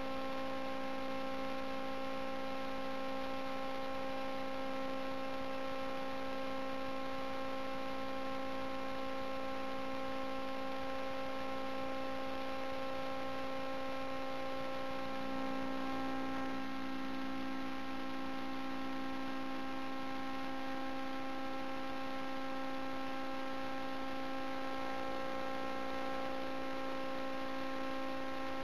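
A steady, unchanging hum made of several pitched tones stacked together, with a slight swell about fifteen seconds in.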